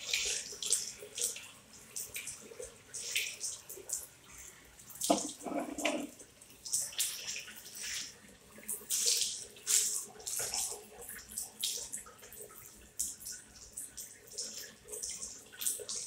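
Water from a Hyco push-button tap splashing into a small ceramic washbasin, uneven and fluctuating, with a duller thump about five seconds in.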